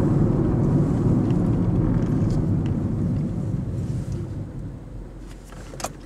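Steady low road and engine rumble of a moving car heard from inside the closed cabin, dying down over the last couple of seconds, with a few faint clicks near the end.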